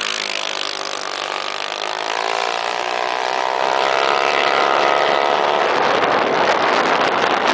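Minibike engine running hard, its pitch climbing and the sound getting louder through the middle seconds.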